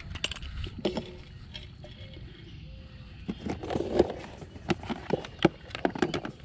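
Footsteps in sneakers on a grassy dirt bank, with clothing rubbing against a body-worn microphone: irregular scuffs and soft knocks that grow busier about halfway through.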